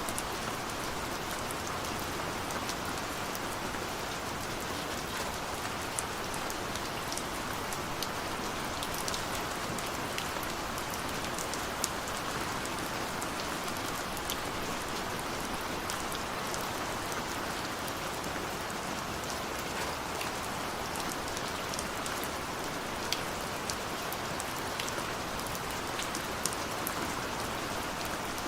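Steady rain on a window: an even, dense hiss with many scattered sharp ticks of single drops striking, a few of them a little louder.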